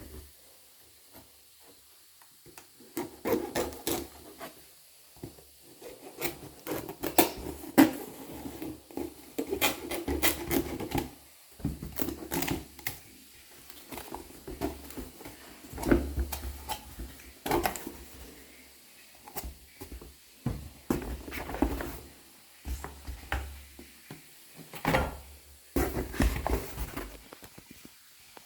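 Hands unboxing and handling a Stanley Quick Flip insulated bottle: irregular scratching and rubbing with clusters of light clicks and knocks, broken by short pauses.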